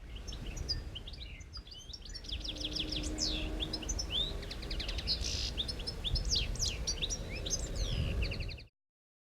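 Several birds singing and calling at once, many short chirps and quick whistled glides, over a steady low rumbling background noise; a soundscape built from layered wildlife recordings. It cuts off abruptly near the end.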